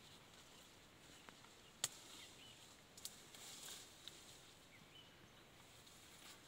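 Near silence: faint outdoor ambience with a few short, faint high chirps, and a sharp click about two seconds in and another about three seconds in.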